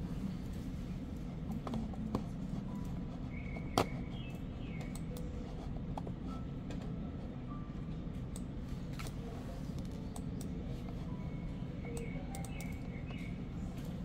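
Office room tone: a steady low hum with scattered light clicks of a computer mouse and keyboard, one sharper click about four seconds in, and a few faint short high tones.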